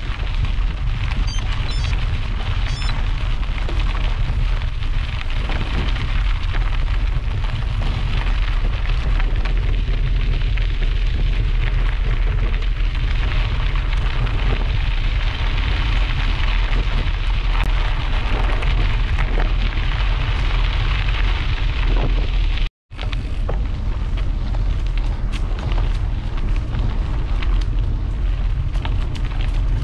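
Steady wind buffeting and low rumble on a moving camera's microphone. The sound cuts out for an instant about three quarters of the way through.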